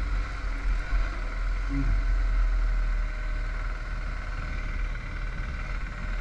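Motorcycle running on the road, a steady deep engine rumble mixed with wind and road noise.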